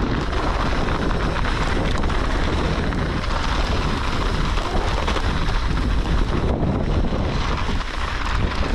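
Mountain bike riding on a hard-packed snow trail: knobby tyres crunching and rumbling over the snow, with a steady rattle of the bike and wind buffeting the microphone.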